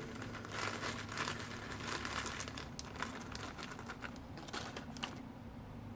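Light crinkling and rustling of small things being handled close by, with scattered small ticks; the crackle dies away about five seconds in.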